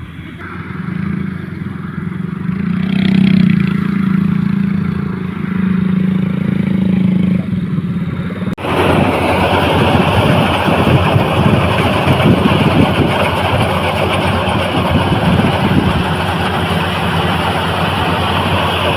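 A motor engine running steadily. About eight and a half seconds in, the sound changes abruptly to a louder, rougher engine noise.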